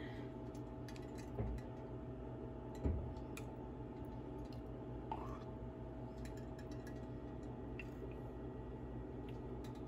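Ghee being spooned into an aluminium pressure cooker: two soft knocks of the spoon against the pot, about one and a half and three seconds in, over a faint steady hum.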